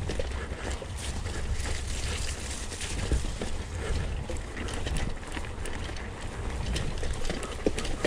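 Bicycle ridden over a bumpy grass track: a steady low rumble from the tyres on rough ground, with irregular clicks and knocks as the bike rattles over the bumps.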